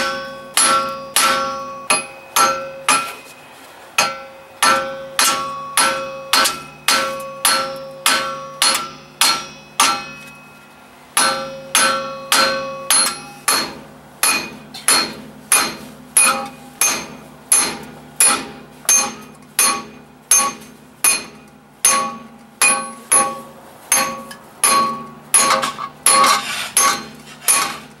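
Slide hammer being driven again and again against its stop to pull the rear wheel hub off a 2017 Subaru Impreza. Each blow is a sharp metal clank with a ringing tone, at about one to two blows a second, coming faster after about ten seconds.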